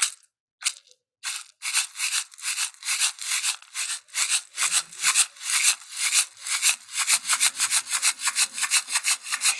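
Rhythmic rubbing strokes, a few slow ones at first, then speeding up to about four or five strokes a second.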